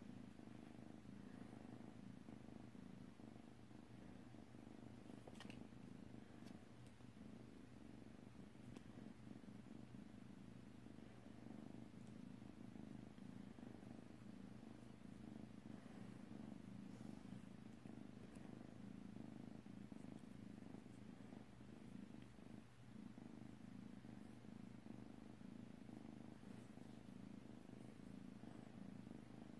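Kitten purring, a faint steady low rumble, with a few faint ticks.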